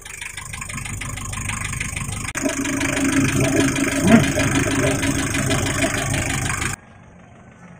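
Mazda Bongo's diesel engine running, heard from inside the cab, getting louder about two seconds in as it takes load; it has a freshly rebuilt cylinder head after a snapped timing belt bent the valves. The sound drops away abruptly near the end.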